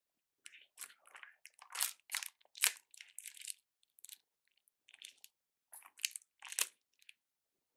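Close crinkling and crunching: a quick, irregular series of short crackles that stops a little before the end.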